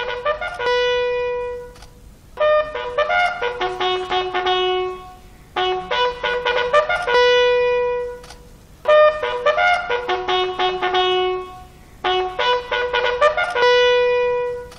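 A bugle sounding a salute call for the flag. It plays about five phrases, one every three seconds or so, each a quick run of notes ending on a long held note, and the held note is alternately higher and lower.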